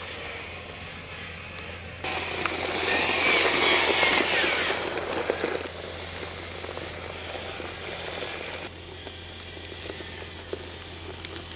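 Electric motors and gears of a 3D-printed 1/14-scale RC articulated dump truck running with a whine. It gets louder for about four seconds starting roughly two seconds in, then settles back.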